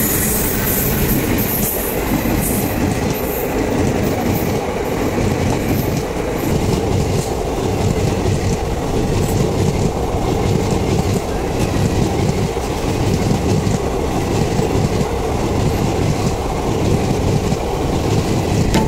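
Passenger train hauled by an electric locomotive passing close alongside: a steady loud rumble of the coaches, with the clickety-clack of wheels over the rail joints.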